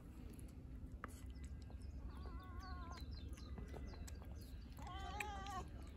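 Orange stray cat lapping and chewing wet food, with small wet clicks. Over it, an animal gives two drawn-out, wavering calls, one about two seconds in and one near the end, with faint high bird chirps around them.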